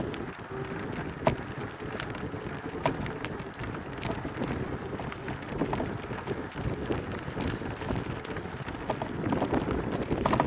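Mountain bike riding over a rough dirt trail: wind buffeting the microphone and tyres rolling over dirt and stones, with scattered sharp clicks and knocks from the bike.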